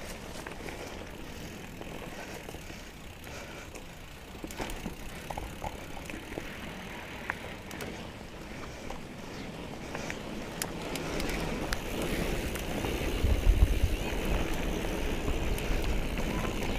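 2017 Trek Remedy 7 mountain bike rolling along a dirt trail: steady tyre noise with scattered clicks and rattles from the bike. A low rumble builds over the last several seconds and is loudest a little before the end.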